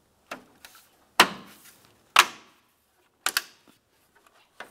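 Plastic push clips of a Ford Flex grille's forward trim piece snapping into their slots as the piece is pressed on: a series of sharp clicks roughly a second apart, the loudest about one and two seconds in, with a quick double click a little past three seconds.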